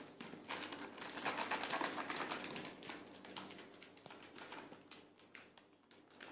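Plastic packet of maida (all-purpose flour) crinkling as the flour is shaken out into a steel plate: a quick run of small crackles, loudest in the first couple of seconds and fading toward the end.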